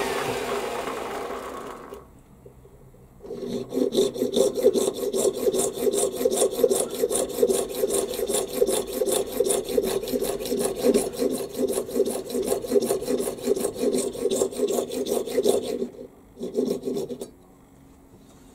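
A lathe spinning down to a stop, then a junior hacksaw cutting through a small brass rod held in the lathe chuck in quick, even strokes for about twelve seconds. A few last strokes after a short pause part the slug off.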